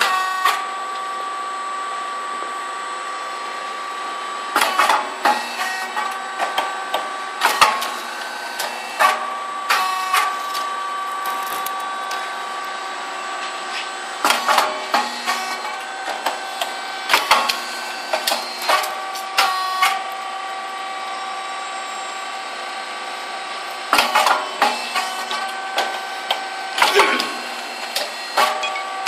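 Puffed rice cake machine running: a steady whine, broken every few seconds by clusters of sharp clacks and pops as the heated molds open, the grain puffs and the finished cakes are released.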